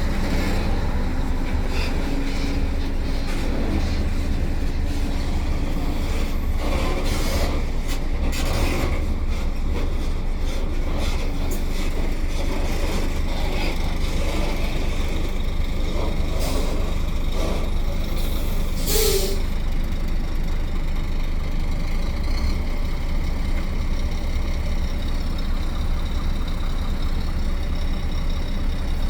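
Container truck running along the road, its diesel engine a steady low note under road noise. There are a few short hisses of air around 7 to 9 seconds in, and a sharper, brief one at about 19 seconds, typical of the truck's air brakes.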